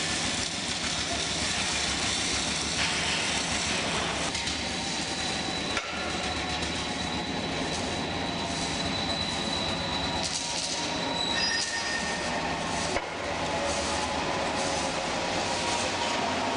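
Steady loud mechanical din of machinery running, with thin high-pitched whining tones that come and go.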